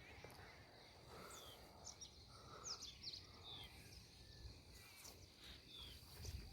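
Near silence outdoors, with a scatter of faint, short, high bird chirps.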